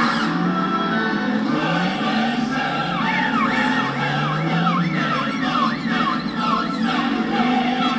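Police car siren yelping, its pitch sweeping up and down about twice a second, over dramatic soundtrack music with choir-like voices, played back from a TV.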